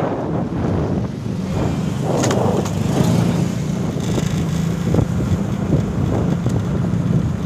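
An engine running steadily with a low hum that firms up about three seconds in, under wind buffeting the microphone. A couple of brief knocks are heard.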